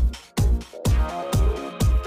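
Background electronic dance music with a steady four-on-the-floor kick drum, about two beats a second, under sustained synth tones.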